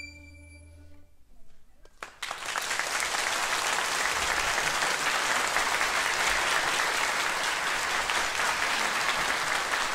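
A held harmonica chord dies away in the first second. About two seconds in, a concert audience breaks into steady applause.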